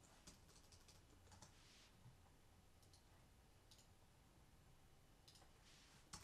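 Faint computer mouse clicks and keyboard keystrokes, a few at a time in short scattered clusters, over quiet room tone.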